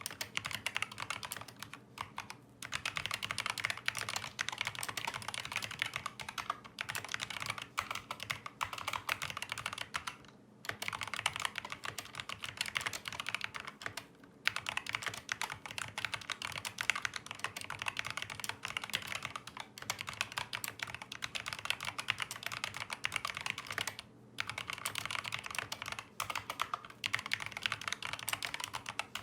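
Fast, continuous typing on a COX CK200 tenkeyless mechanical keyboard with Kailh optical linear switches, muffled somewhat by a desk mat. Rapid key clacks run in long streaks, broken by brief pauses four times.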